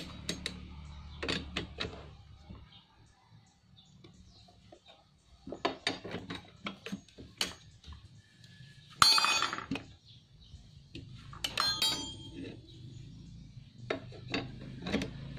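Hand tools clicking and clinking against the clutch shoes and spring of a small power-sprayer engine. The loudest moment is a ringing metallic clatter about nine seconds in, followed by a shorter ringing clink a few seconds later.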